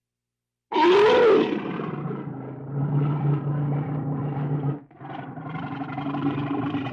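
A large wild animal's loud call, starting sharply after a moment of silence, with a pitch that rises and falls, then running on as a long low rough sound that breaks off briefly near five seconds and resumes.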